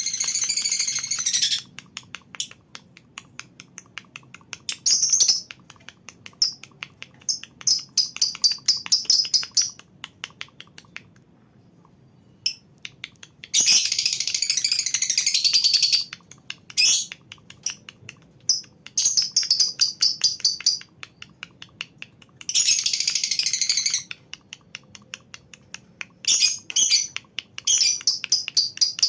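A colony of lovebirds calling: three long, dense, high-pitched chattering trills (the 'ngekek' song), each a second or two long, with runs of rapid short chirps and ticks between them and a quieter pause about a third of the way in.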